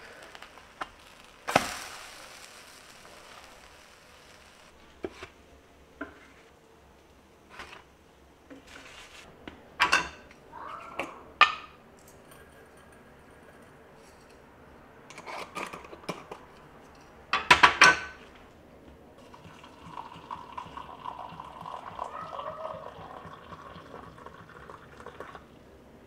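Kitchen handling sounds: sharp clinks and knocks of a spatula and utensils against a stainless-steel pan and glassware, with a loud rattling clatter about two-thirds of the way in. Near the end, water pours steadily into a glass tea mug for about six seconds.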